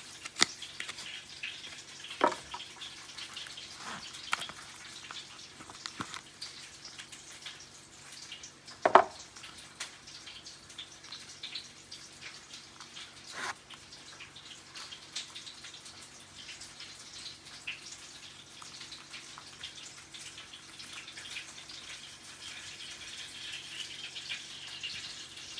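Hands handling a leather card holder, its metal zip and a card price tag: scattered small clicks and taps, the loudest a sharp tap about nine seconds in, with a soft rustle near the end.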